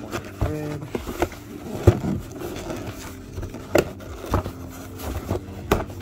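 Cardboard packaging being handled: a thread sample box knocked and slid about inside a cardboard shipping carton, giving several sharp taps and knocks, the loudest about two seconds in, with rustling between.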